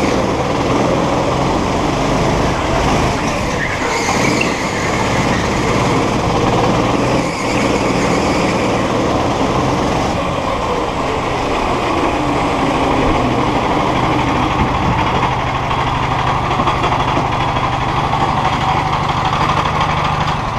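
Go-kart engine running hard at speed, with the pitch falling once about two thirds of the way through as the kart slows for a corner.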